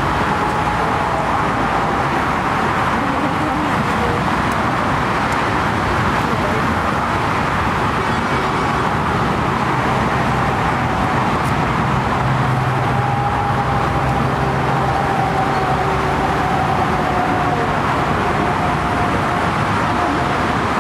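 Steady roar of airliner jet engines on approach, with a faint whine that drifts slowly in pitch, mixed with road traffic noise.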